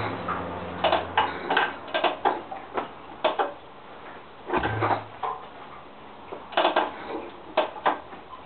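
Yamaha SR400 single-cylinder being kick-started from cold without catching: repeated metallic clicks and clacks of the kickstart lever and mechanism, with one short low thump about halfway through.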